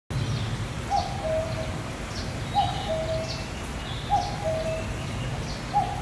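Common cuckoo calling its two-note "cuck-oo", a higher note falling to a lower one, four times about a second and a half apart. Faint chirps of small birds sound in the background.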